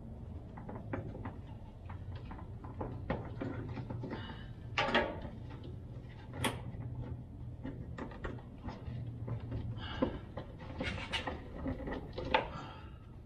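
Scattered small clicks, taps and scrapes of gloved hands and a hand tool working the fuel filter's plastic fuel line fittings and their lock tabs under a van, with a few sharper knocks, over a steady low hum.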